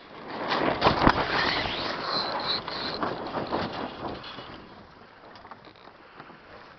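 A sailboat tacking: the headsail flaps and its sheet runs and is winched in, a clattering, clicking rattle with a brief high squeak that lasts about four seconds and then dies down to wind and water.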